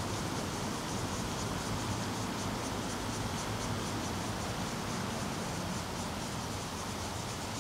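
Steady outdoor background hiss with a faint high-pitched pulsing about four times a second, typical of insects calling.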